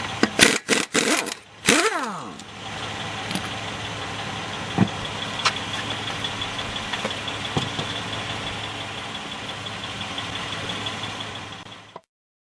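Several short, loud bursts from an air tool in the first two seconds, the last one winding down in pitch. Then the HT25L-15A 12-volt DC air compressor runs steadily with a high whine and a few light knocks, and the sound cuts off abruptly near the end.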